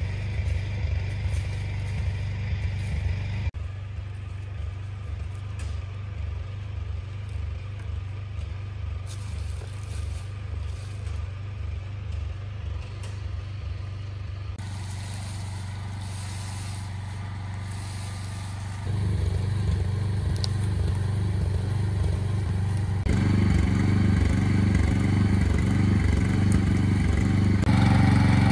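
Small engine of a Yamabiko tracked forestry carrier running steadily with a low pulsing beat, growing louder over the last few seconds.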